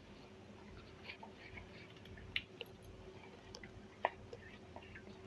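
Faint clicks and light scraping of a spoon against a mixer jar as spice paste is scooped onto boiled potatoes, the sharpest click about four seconds in, over a faint steady hum.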